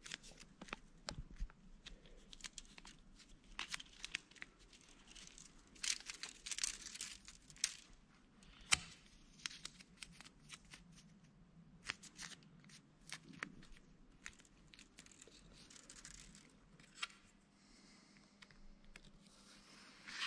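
Faint handling sounds of thin planed bamboo rod strips and tape: scattered light clicks and taps, with a few short tearing and rustling passages.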